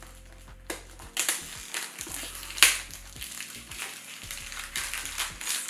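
Perfume box being opened by hand: rustling and scraping of the packaging, with a sharp snap about two and a half seconds in.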